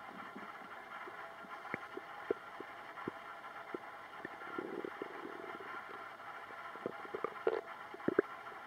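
Human stomach gurgling, with short scattered pops and clicks and a couple of brief bubbling rumbles about halfway through and near the end, over a steady background hiss.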